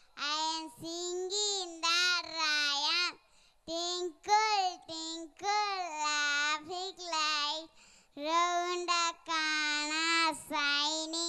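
A young girl singing unaccompanied into a handheld microphone, in held, melodic phrases with short pauses between them.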